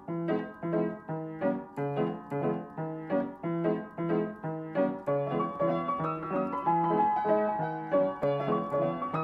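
Background piano music: a steady repeating pattern of notes, about three a second, with higher notes joining about five seconds in.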